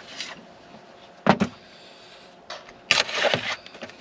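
Food-prep handling noises at a metal camp table: a sharp double knock about a second in, then a louder rustling, scraping clatter lasting about half a second, as a knife and a plastic tray of chicken wings are handled.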